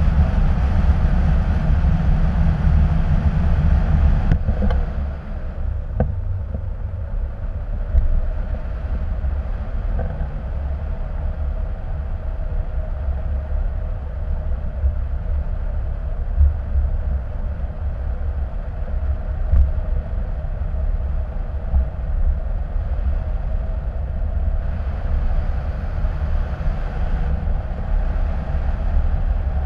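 Wind buffeting the microphone of a camera mounted on a hang glider in flight: a steady low rumble of rushing air, which eases a little about four seconds in.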